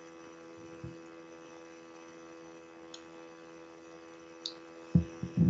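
Steady electrical hum made of two constant tones, with a few faint clicks and two short low thumps near the end.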